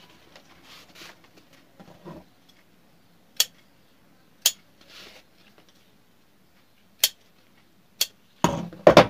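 Small scissors snipping notches into a stiff strip of adhesive-backed belt interlining: single sharp snips a second or more apart, then a quick cluster of louder snips near the end, with soft rustling of the strip in between.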